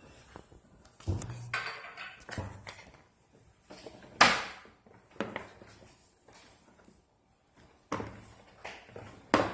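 Irregular knocks and scrapes of a utensil against a mixing bowl as slime is stirred, the loudest knock about four seconds in.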